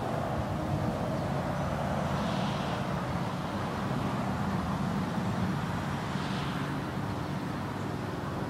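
Steady background rumble with a low, engine-like hum, of the kind made by motor traffic.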